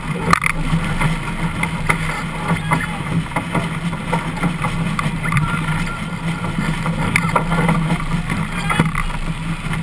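Water rushing and splashing along the hull of a Melges 24 racing keelboat under sail, with scattered knocks and clicks from the boat and its rigging.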